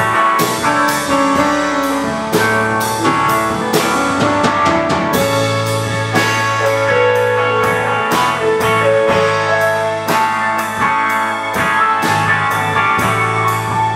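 Rock band playing an instrumental passage: electric guitar, keyboard, bass guitar and drum kit over a steady beat.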